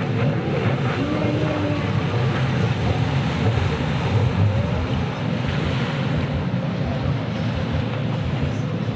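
Surf washing in the shallows and wind buffeting the microphone, under the running engine of a stand-up racing jet ski as it comes in through the waves to the shore.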